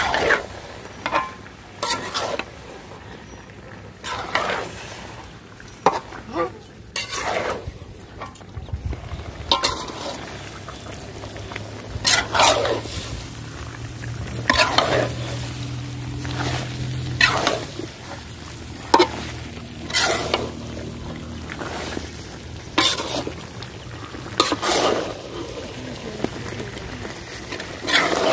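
Long metal ladle scraping and knocking against a large metal karai, a stroke every one to three seconds, as chicken pieces are stirred and fried in a spiced masala with amra. Under the strokes the pot keeps up a steady sizzle.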